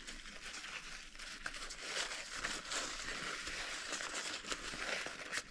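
Paper towel rustling and crinkling as it is rubbed over the body of a Favero Assioma power-meter pedal to wipe it clean. It makes a continuous scratchy rustle scattered with small crackles.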